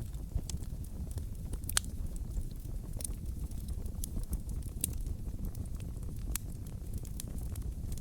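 Campfire burning and crackling: a steady low rumble of flame under scattered sharp pops, the loudest about two seconds in.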